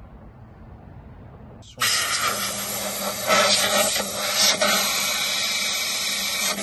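Compressed-air blow gun on a coiled air hose hissing as it blows dust and debris out of an RV water heater's burner compartment. The hiss starts abruptly about two seconds in and swells louder a few times.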